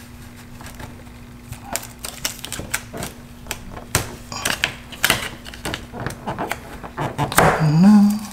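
Light irregular clicks and taps of a plastic trim piece and painter's tape being pressed and handled against a car's lower door panel. Near the end, a louder short sound that rises in pitch.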